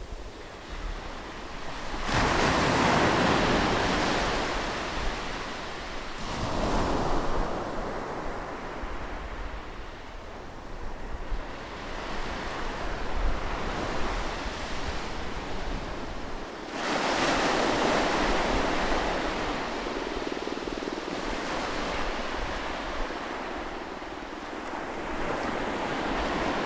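Sea waves breaking on a shore. Surf surges up about two seconds in, again around six seconds, and strongest at about seventeen seconds, with a steady wash between the breaks.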